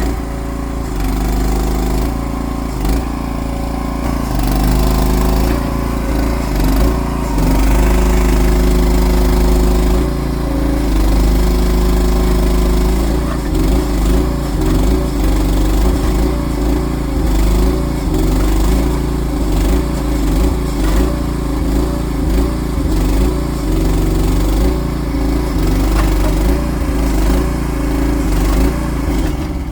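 Small engine of a one-ton mini excavator running, its pitch and level rising and falling as it works under load.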